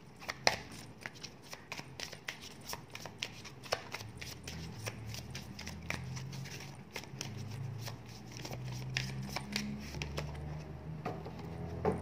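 Oracle cards being shuffled and drawn by hand: a long run of quick, irregular light clicks and flicks of card stock. Faint low steady tones lie underneath from about four seconds in.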